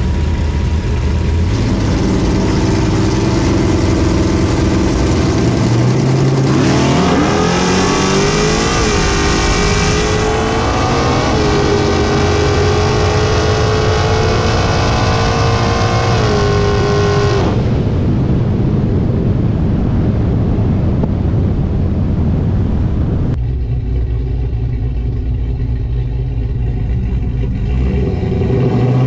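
Supercharged 392 Hemi V8 in a RAM pickup making a drag-strip pass. It runs steadily at the line, then launches about six and a half seconds in and pulls at full throttle, with the pitch climbing and dropping back at the gear shifts under a high whine. About eleven seconds later it lifts off sharply and coasts, then runs quietly at low speed.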